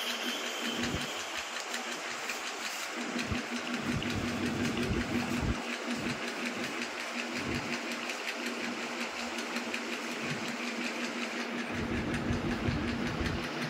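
Corded electric hair clipper buzzing steadily as its blade cuts short hair around the ear and up the back of the head, with irregular low knocks.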